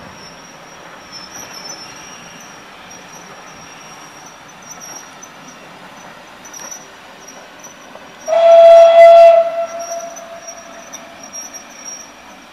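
Passenger coaches rolling slowly along the track with a faint, steady high-pitched wheel squeal. About eight seconds in, a steam locomotive whistle sounds, loud for about a second, then dies away over the next few seconds.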